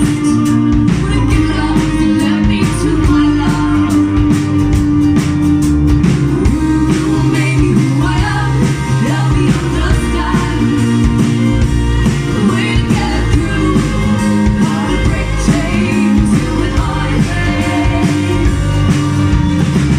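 A band playing a rock song with guitar and singing, loud and steady throughout.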